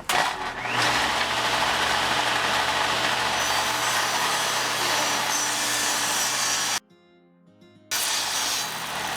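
Electric power saw running steadily while cutting thin strips of solid walnut. About two thirds of the way in, the sound drops out abruptly for about a second, then comes back a little quieter.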